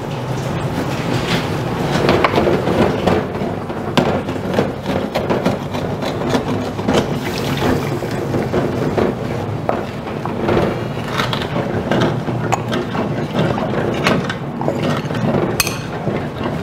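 Wooden spoon scraping and stirring across the bottom of a hot aluminium kawali as marinade liquid sizzles and bubbles in it, deglazing the browned bits, with vinegar poured in about halfway.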